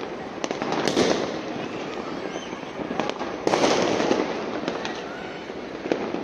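Many fireworks and firecrackers going off together: a continuous crackle and popping, with sharper bangs about a second in, around three seconds and near the end.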